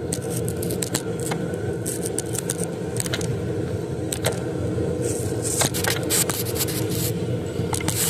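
Scattered clicks and scrapes of hands and tools handling parts in a car's engine bay, coming thicker in the second half, over a steady low hum.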